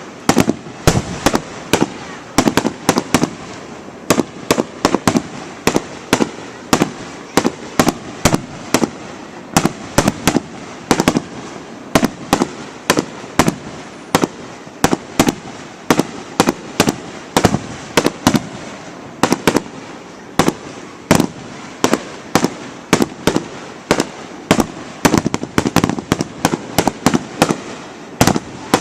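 Fireworks grand finale: a rapid, unbroken barrage of aerial shell bursts, several loud bangs a second over a continuous rumble.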